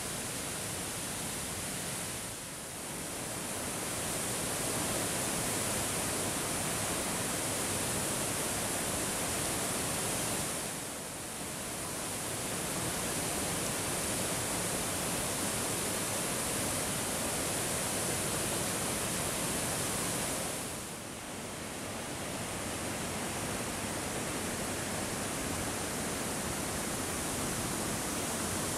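Rain-swollen waterfall and flooded river: a steady rush of falling and churning water, dipping briefly in level three times.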